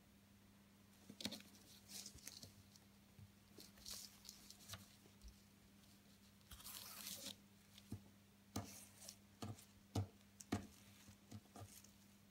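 Faint handling sounds of ribbon embroidery: scattered small clicks and taps of a needle and satin ribbon being worked through burlap in a plastic hoop, with one longer rasp about seven seconds in as ribbon is drawn through the coarse fabric.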